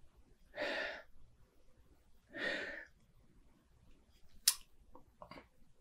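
A person sniffing a glass of beer twice, each sniff about half a second long, then a sharp click near the end followed by a couple of fainter knocks.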